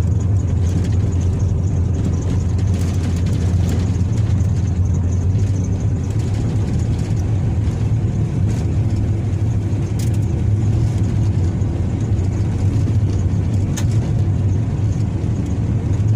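A car's engine and tyres on an unpaved forest road, heard from inside the cab: a steady low drone with road noise. Two brief knocks come in the second half.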